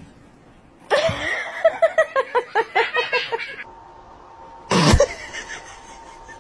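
A person laughing in a quick run of short 'ha' bursts for about three seconds. Near the end comes one sudden loud burst of noise.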